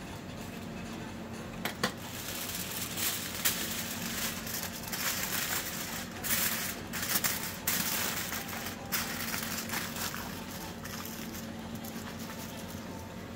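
Aluminium foil crinkling and crackling as it is folded around a bread kebab, loudest in the middle few seconds, over a steady low hum.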